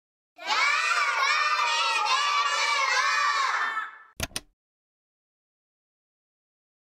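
A group of children's voices calls out together for about three and a half seconds. A quick double click follows.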